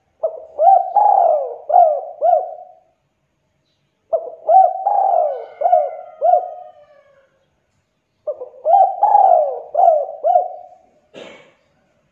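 Spotted dove cooing: three phrases of several throaty, gliding coos, each lasting a few seconds with short pauses between. Near the end comes a brief scuffing noise.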